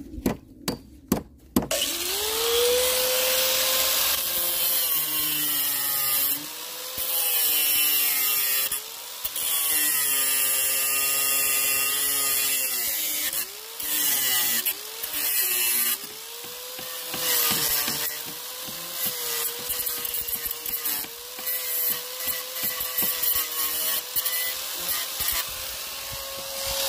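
A few sharp clicks, then an angle grinder spins up about two seconds in and cuts off nails sticking out of a wooden pallet: a steady motor whine over a harsh grinding hiss, its pitch dipping again and again as the disc bites into the metal.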